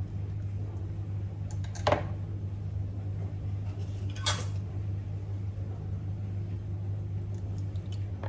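Two sharp clinks of kitchenware being set down or knocked together, about two seconds apart, over a steady low hum.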